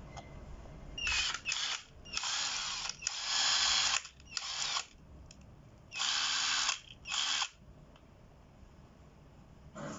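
Battery-powered FOX 520 Nm impact wrench run in seven short bursts, each under a second, with pauses between them.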